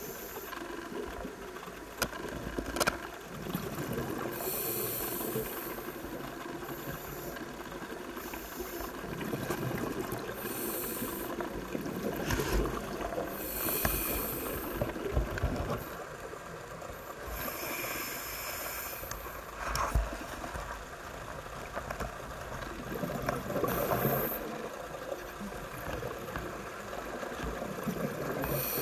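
Scuba regulator breathing heard underwater: a hiss on each inhale every few seconds, with bubbly rumbling exhales between them and a few sharp knocks.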